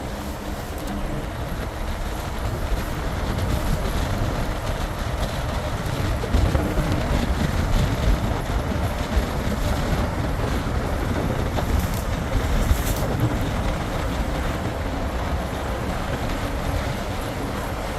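Steady low rumble of a moving vehicle heard from inside, with a few brief louder knocks.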